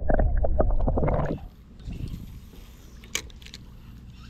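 Water sloshing and gurgling heard through a submerged microphone, muffled and churning, which stops abruptly about a second and a half in. After that there is only a quiet low water-and-wind background, with a single sharp click a little past the middle.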